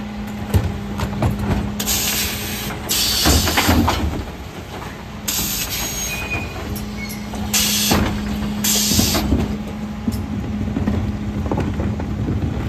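Refuse truck's Zoeller bin lifter tipping wheelie bins into a Faun Variopress compactor body, over a steady hum from the truck. There are several short bursts of hiss and knocks of plastic bins against the lifter.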